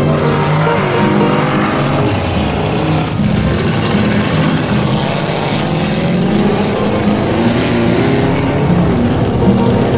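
Lifted square-body Chevrolet mud truck's engine revving hard as it plows through a mud pit, its pitch rising and falling, over a steady wash of spraying mud and water.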